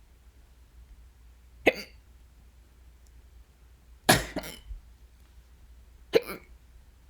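A person hiccuping three times, about two seconds apart, in a strong bout of hiccups; the middle hiccup is longer and doubled.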